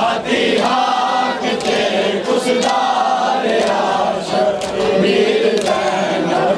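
A crowd of men chanting a nauha, a Shia mourning chant, together in unison, with a few sharp slaps heard among the voices.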